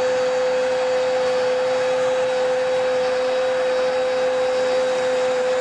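A football commentator's single long held shout celebrating a goal, one steady unbroken note, over a stadium crowd cheering.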